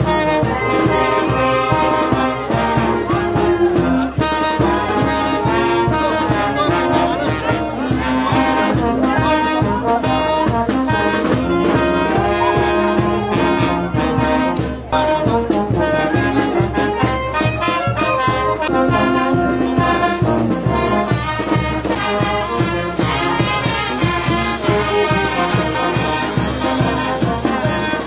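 Brass band playing dance music with a steady beat: trumpets and trombones over a regular rhythm.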